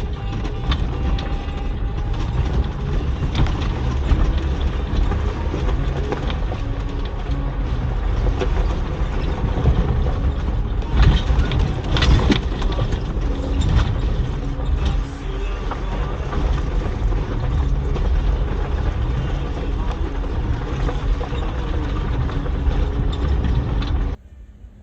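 A vehicle driving with a steady low rumble and rattling, cutting off suddenly near the end.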